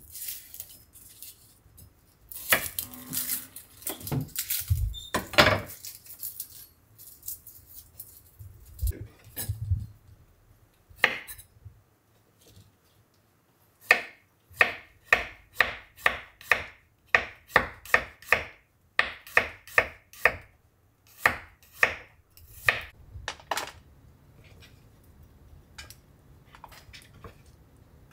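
A kitchen knife slices garlic cloves on a wooden cutting board. About halfway in, an even run of crisp knife taps on the board begins, about two or three a second, lasting roughly ten seconds. Scattered knocks and rustles from handling come before it.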